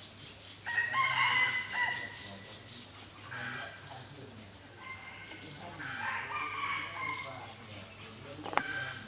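Rooster crowing: one loud crow about a second in, with fainter calls later.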